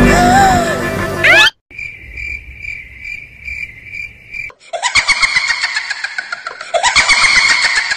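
Edited sound-effect track in three parts. It opens with a loud, dense sound that cuts off after about a second and a half. Then comes a single high chirp pulsing about three times a second for about three seconds, followed by a dense buzzing sound with many falling pitch sweeps.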